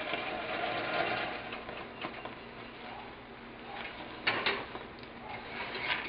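Caramel cooked to 350°F bubbling up as warm cream is poured in to deglaze it, with a wooden spoon stirring in the saucepan and knocking against it a few times.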